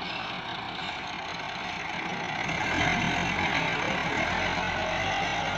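Diesel farm tractor with a front-end loader running as it lifts a loaded bucket; the engine gets louder and heavier about halfway through.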